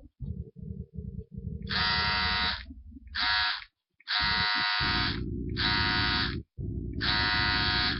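Harsh, buzzy electronic-sounding tone sounding in five bursts, each half a second to a second long, over a low rumbling hum that cuts in and out; it is offered as a song to guess.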